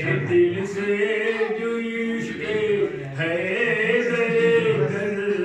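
A man chanting verse in a sung style into a microphone, in two long phrases of held, wavering notes with a short break about three seconds in.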